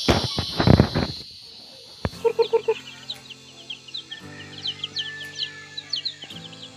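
Young chicks peeping: many short, high, upward chirps, over background music with held notes. A loud rustling noise fills the first second or so, before the chirps begin.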